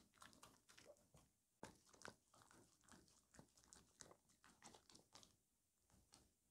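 Faint, irregular wet clicks of a Maltese dog nibbling and licking a strawberry held in a hand.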